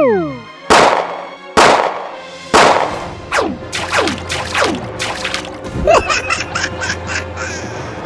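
Cartoon sound effects: three loud crashes about a second apart, then several short falling whistles, then a quick run of clicks near the end.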